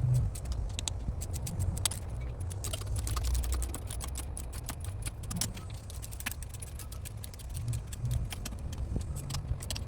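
Irregular small clicks and light metallic rattling of hand tools and bike parts being handled during bicycle assembly, over a low rumble.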